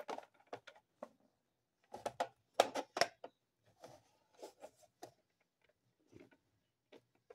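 Small clicks and knocks of a hard plastic tray being handled as a tight, stuck lid is worked at, in a few scattered clusters.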